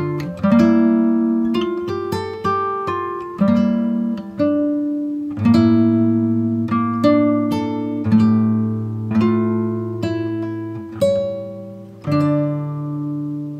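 Background music on acoustic guitar: a slow melody of plucked notes and chords, each struck sharply and left to ring out and fade.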